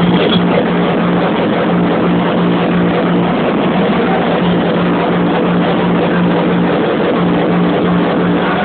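Hardcore techno played very loud over a club sound system and overloading the camera's microphone, so it comes through as a dense distorted wash with a steady low bass note that drops out briefly twice.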